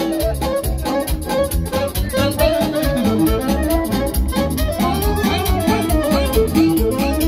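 Live band playing a hora through PA speakers, loud: a lively instrumental melody over a steady pulsing beat.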